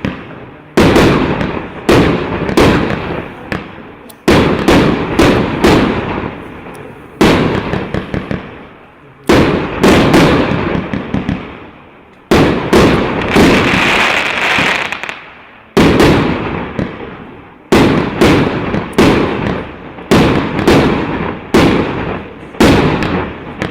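A 200-shot fireworks cake battery of 32 mm (1.25-inch) shells going off in succession: a sharp bang every second or two, each followed by a fading crackle and echo. There is a longer hissing stretch about midway.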